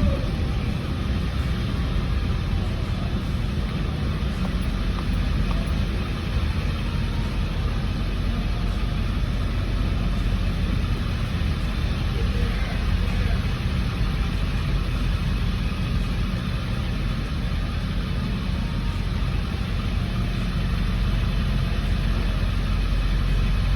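Vehicle engine idling steadily: a low, even rumble.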